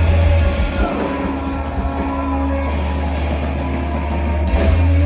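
Live rock band playing loudly: distorted electric guitar and heavy bass with long held, ringing notes over drums, and a cymbal crash near the end.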